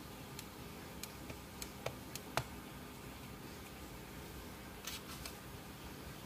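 Light taps and clicks as a wooden-handled rubber stamp is pressed onto an ink pad and handled on a tabletop: a string of small knocks in the first half, the sharpest about two and a half seconds in, then a brief scuff around five seconds, over a steady low hiss.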